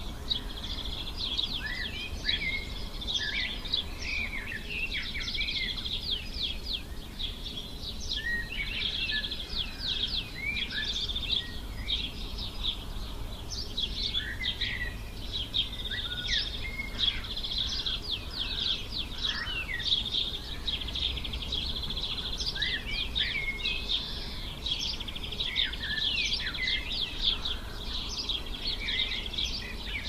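Morning chorus of many small birds singing and chirping over one another without pause, with a steady high-pitched tone running beneath the calls and a faint low rumble.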